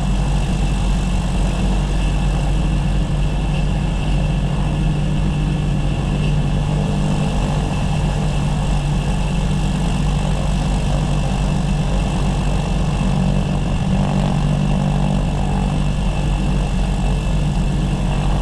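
Cessna 340's turbocharged piston engine idling steadily on the ground, heard from inside the cockpit: a cool-down idle before shutdown.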